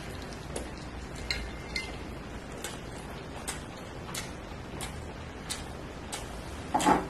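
A person chewing a mouthful of poached egg and bread with the mouth closed, making small wet mouth clicks at a slightly uneven pace of about one and a half a second. A louder mouth sound comes just before the end.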